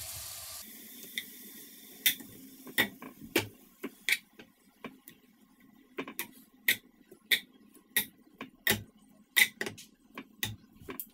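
Kitchen tongs clicking and tapping against a frying pan as seared beef chunks are picked out one by one: an uneven string of sharp clicks, about two a second.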